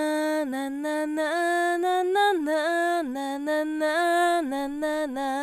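Solo female voice singing a cappella, dry and unprocessed with no compression, repeating 'na' syllables on a melody that steps up and down between notes.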